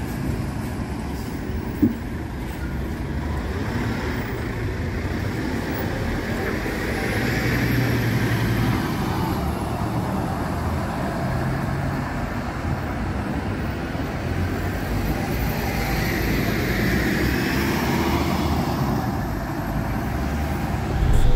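City buses and road traffic driving past, a steady rumble of engines and tyres that swells twice as buses go by. A short click about two seconds in.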